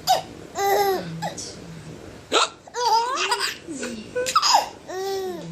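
A man hiccups sharply three times, about two seconds apart. A five-month-old baby laughs in high squeals and giggles between the hiccups.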